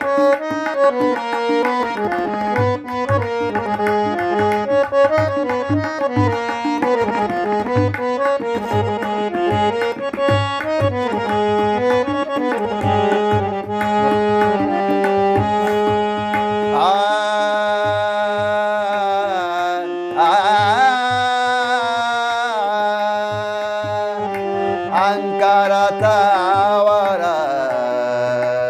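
Harmonium playing a melody over a held drone note, accompanied by tabla strokes in a steady rhythm. Over the last third a voice joins with a sliding, wavering melodic line.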